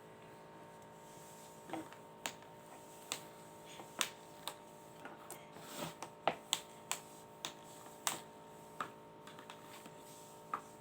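Irregular sharp plastic clicks of a puck being hit by mallets and bouncing off the rails of a small tabletop air hockey game, over the faint steady hum of the game's air fan.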